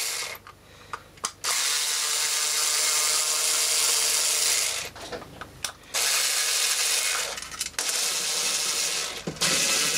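Electric screwdriver running in two spells of about three seconds each, with a short pause between, working at the screws of a toy's casing; one of them is a stubborn, worn screw.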